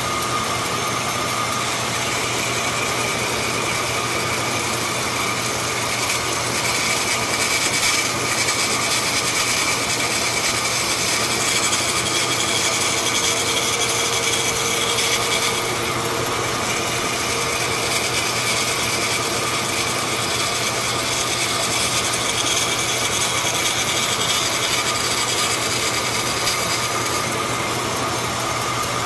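A vertical bandsaw runs while its blade shaves a thin strip off the edge of a particleboard piece that rides against the back of the blade. It makes a steady hiss of cutting over a low motor hum, with a few steady tones, and holds the same level throughout.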